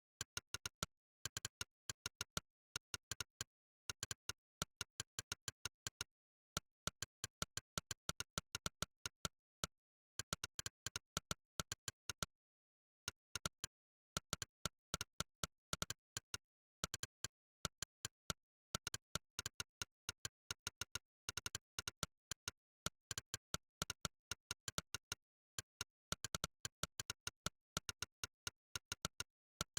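Monkeytype's 'click' keypress sound effect: one short, sharp click for each keystroke, in quick runs of several a second broken by short pauses, with dead silence between the clicks.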